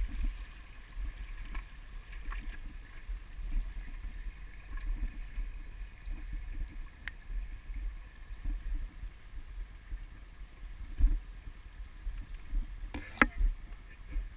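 Footsteps over loose stones along a shallow rocky creek, heard as irregular low thumps and rumble on a walking GoPro's microphone. A few sharp crunches come through, the loudest near the end, over a faint trickle of water.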